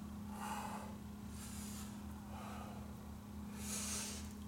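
A man breathing hard in and out through nose and mouth, about four heavy breaths a second or so apart, from the exertion of a barbell deadlift repetition, over a steady low hum.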